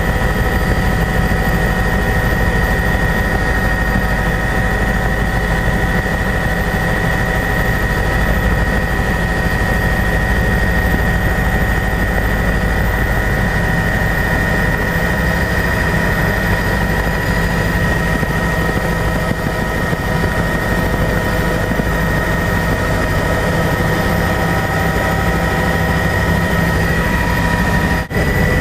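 Helicopter in flight heard from inside the cabin: a steady loud rotor and engine drone with a fast low beat and a high steady whine. The sound breaks for an instant near the end.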